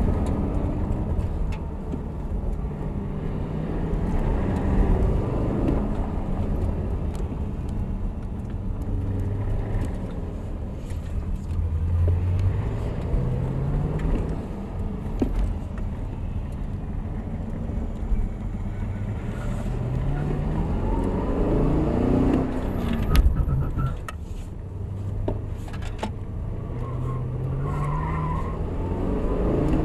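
Chevrolet Camaro ZL1's supercharged V8 heard from inside the cabin, easing off and revving up again several times as the car slows and accelerates, with a few knocks about two-thirds of the way through.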